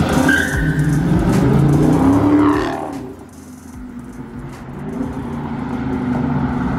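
Dodge Charger Scat Pack's 6.4-litre HEMI V8 revving hard as the car accelerates away, its pitch rising. The sound drops off about three seconds in, then builds again toward the end.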